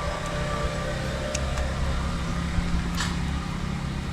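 Steady low engine-like hum of background vehicle noise, with a couple of faint light clicks.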